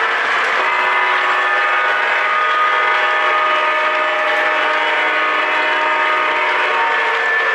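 O gauge model train running on the layout: a steady rolling rush with several steady tones held throughout, a few new tones joining about half a second in.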